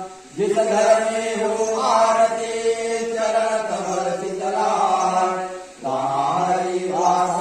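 Male chanting of a Hindu aarti hymn in long, held notes on a steady pitch. It breaks briefly for breath just after the start and again near six seconds in.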